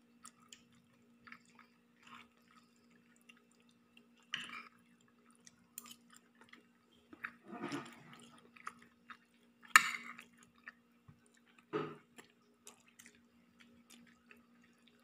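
Quiet eating sounds: chewing and small clicks and taps of food and hands on a plate, with a few louder short smacks or clinks, the sharpest about ten seconds in. A faint steady low hum runs underneath.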